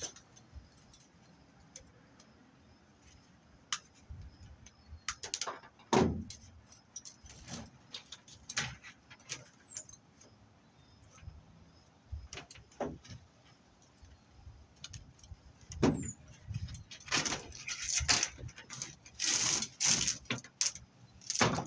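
Lengths of steel and aluminum BX armored cable being handled and sorted, the metal sheathing clinking and rattling in scattered knocks, busier and louder near the end.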